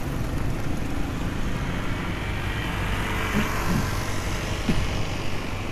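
Street traffic heard from a moving motorbike in a city: a steady low engine drone with tyre and wind noise, and scooters and cars passing close by.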